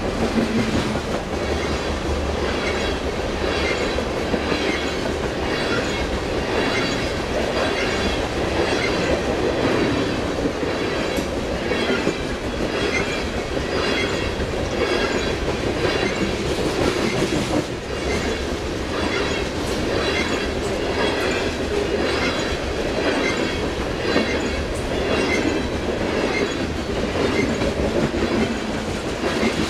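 Loaded coal hopper cars of a long freight train rolling past, their steel wheels making a regular clickety-clack over the rail joints above a steady rumble.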